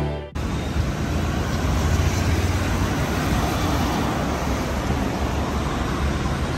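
Steady city road traffic, with cars driving past on a multi-lane street. Background music cuts off sharply right at the start.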